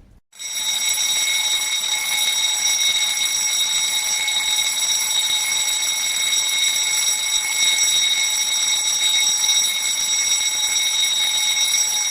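Fire alarm ringing continuously at a steady, high pitch, starting about half a second in and cutting off suddenly near the end.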